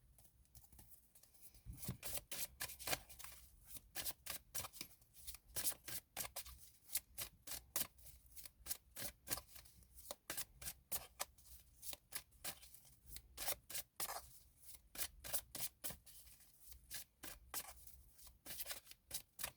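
A tarot deck being shuffled by hand: quick, short clicks of cards, several a second, starting about two seconds in.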